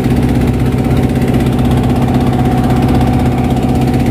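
A wooden boat's engine running steadily under way, a constant low drone at an even pitch.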